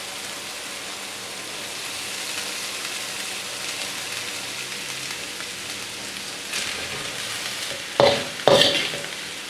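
Shredded cabbage, carrot and beans sizzling in oil in a wok over medium-high heat, a steady hiss. Near the end a metal slotted spatula strikes and scrapes the wok twice as boiled rice is stirred in.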